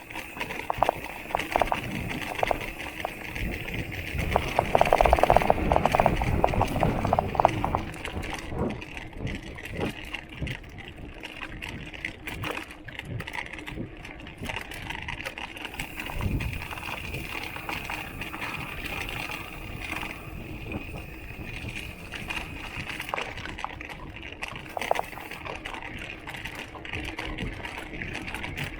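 Giant XTC mountain bike ridden over a rough trail, its bottle cage rattling in a stream of small clicks over tyre and trail noise, louder for a few seconds early on.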